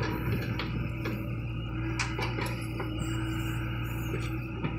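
John Deere 60G compact excavator's diesel engine running steadily under digging load, with a few sharp clanks from the bucket and arm, a cluster of them about two seconds in and one near the end.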